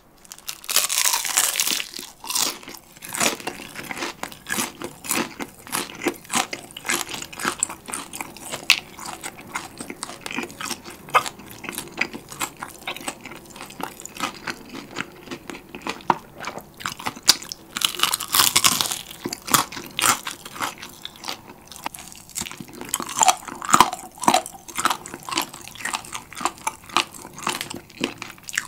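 Crispy battered fried chicken drumstick being bitten and chewed close to the microphone: the crust crunches with dense crackles throughout. The loudest bites come about a second in and twice more in the last third.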